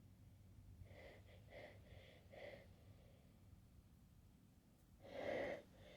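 A person's soft, hitching breaths, about four in a row, then a louder gasping inhale about five seconds in: the build-up to a sneeze during a sneezing fit.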